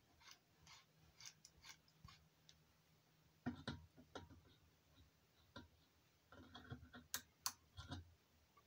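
Micrometer being set and tightened onto a small motor's steel shaft: faint scattered clicks and light taps, with a run of quicker, sharper clicks in the last couple of seconds as it closes on the shaft.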